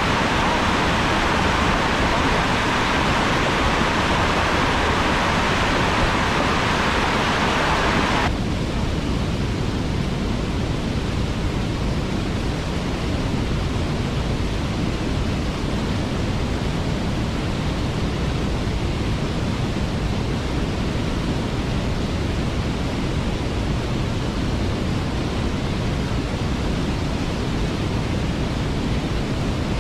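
Waterfall rushing steadily. About eight seconds in, the rush abruptly becomes duller and lower.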